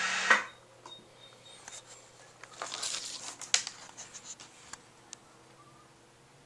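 A loud rushing noise cuts off abruptly about a third of a second in. Then comes faint, irregular clicking and ticking from an N-scale model train running on its track, busiest in the middle and dying away after about five seconds.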